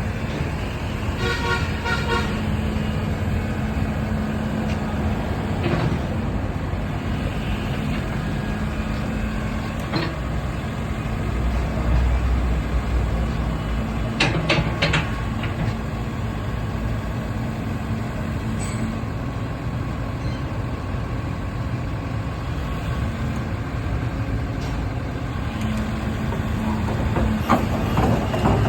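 Kobelco SK80UR-6 excavator's diesel engine running steadily, with a few sharp knocks about halfway through.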